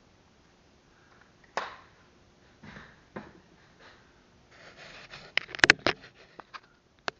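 Handling noises: a sharp click, soft scuffing, then a quick run of clicks and knocks, with two more sharp clicks near the end.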